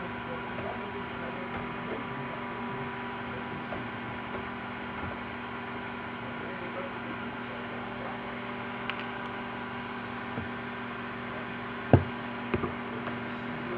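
Steady electrical hum made of several steady tones, with a few light clicks over it; the loudest click comes about twelve seconds in, followed by a quick double click just after.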